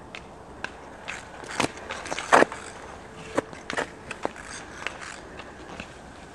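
Ice skate blades scraping and clicking on rough natural ice in short, irregular strokes, a child's halting strides, with the loudest scrape a little past the middle.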